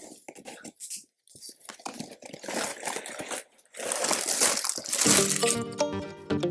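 A cardboard LEGO set box being slit open and its flaps pulled apart: irregular crackling, scraping and tearing of cardboard and packaging for about five seconds. Background music starts about five seconds in.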